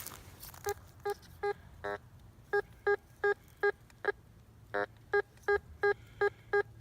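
Teknetics Patriot metal detector giving a clean, short target tone each time the coil passes over a buried target, a few beeps at first and then about two to three a second. A nice and clear tone, with two longer, buzzier tones about 2 s and 5 s in.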